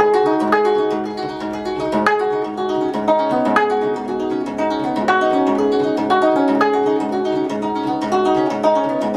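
Gayageum, the Korean plucked zither, being played: a steady flow of plucked notes, each ringing on over the next.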